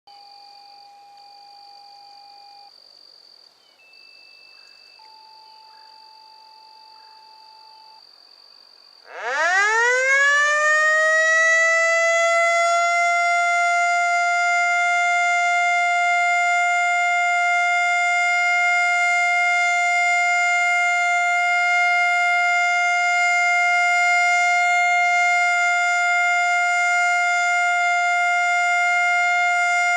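Federal Signal Model L fire siren starting up about nine seconds in, winding quickly up from a low pitch to a steady high alert tone with many overtones, which it holds. The uploader describes this siren as sounding sick. Before it, faint steady tones change pitch a few times.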